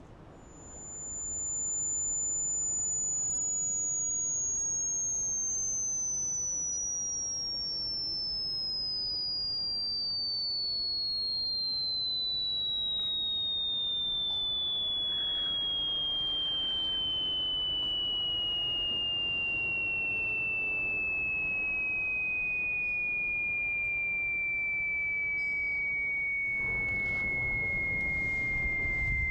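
A single high, pure electronic tone that fades in, holds briefly, then slowly and steadily falls in pitch. It is a synthesized ringing-ear sound effect.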